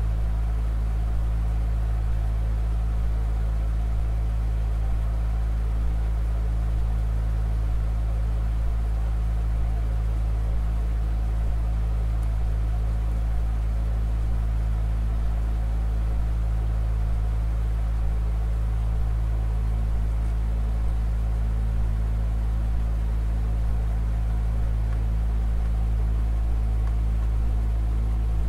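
A steady low drone of several held low tones over a deep rumble, from a piece built from field recording and organ. A faint higher tone joins near the end.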